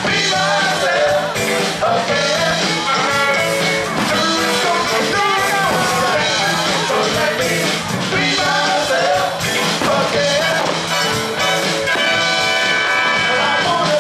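A live funk band playing a song with a singer's voice over the instruments.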